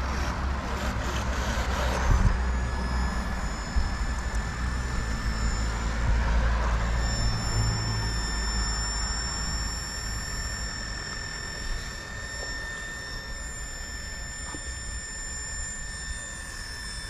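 Power-drill tree diagnostic device running, its motor giving a steady high-pitched whine from about two seconds in as it drills into the trunk to probe for decay and cavities. A low rumble sits under it and fades about eight seconds in.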